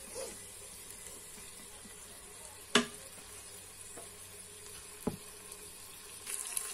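Onion and diced turkey frying gently on lowered heat in an electric multicooker pot, a low steady sizzle. A sharp knock comes about three seconds in and a lighter one near five seconds.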